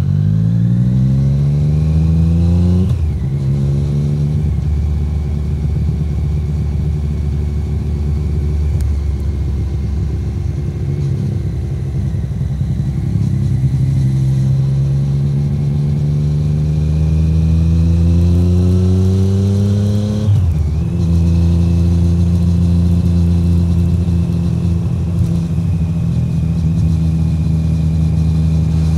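Exhaust note of a 2017 Triumph Street Triple 765R's three-cylinder engine through an SC Project SC1-R titanium exhaust, under way. The revs rise and drop at an upshift about three seconds in, then climb slowly to a second upshift about two-thirds of the way through, then hold steady while cruising.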